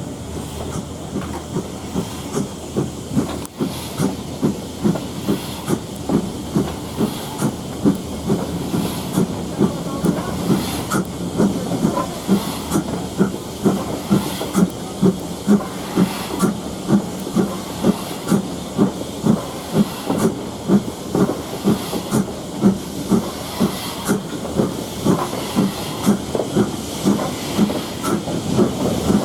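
LMS Ivatt Class 2MT tank engine No 41313 steaming along, its exhaust beats coming in a steady rhythm of about one a second over a constant hiss of steam. The beats grow louder from about twelve seconds in.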